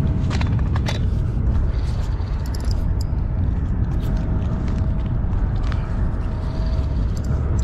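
Wind buffeting the camera microphone in a steady low rumble, with scattered clicks and scrapes as a landing net and a spinning rod and reel are handled.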